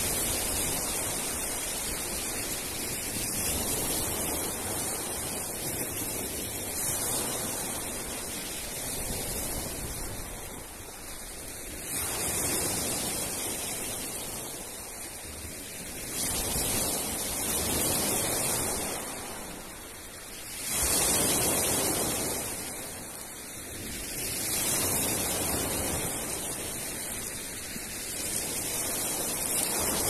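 Sea waves breaking and washing up a pebble shore in a steady, rushing surf that swells and ebbs every few seconds, with the loudest wave about two-thirds of the way through.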